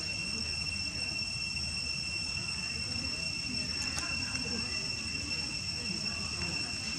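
Insect chorus: a steady high-pitched drone of two even tones over a low rumble of background noise.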